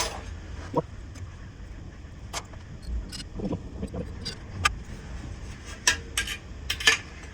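Irregular light metallic clicks and clinks of small steel bolts being handled and fitted, the sharpest few near the end, over a steady low shop rumble.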